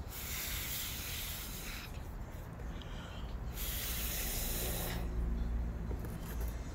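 Two bursts of hissing, rushing noise, the first about two seconds long and the second about a second and a half, each starting and stopping abruptly.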